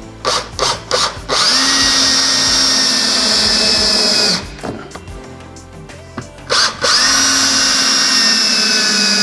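Cordless drill driving two screws through a wooden block into the wall studs: a few short trigger blips, then a steady whine for about three seconds. Then more blips and a second steady run, each run dropping slightly in pitch at its end as the screw seats.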